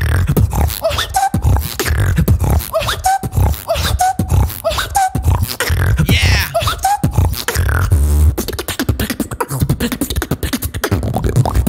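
Solo beatboxing: a fast, dense rhythm of heavy bass kicks and sharp clicks and snares made with the mouth, with short pitched vocal blips and glides layered on top.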